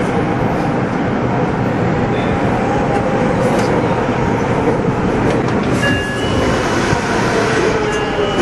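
Meijo Line subway train heard from inside the cab, slowing to a stop at a station platform, with steady running and cab noise throughout. Brief high squeals come about six seconds in and again near the end.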